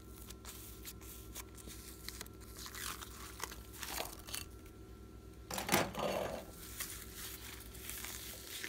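Thick pink glitter slime pressed by fingers, then peeled off its dish and stretched by hand: sticky crackling and tearing sounds, with a louder rip a little past halfway as it pulls away.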